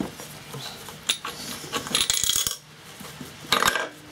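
Metal parts clinking and clattering in three short bursts as the crankcase cover of a 2hp Briggs & Stratton engine is worked off and loose internal parts shift. The camshaft and cam followers come loose inside.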